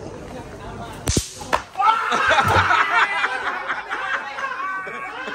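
A sharp whip-like crack about a second in and a second smack just after, then loud high-pitched voices.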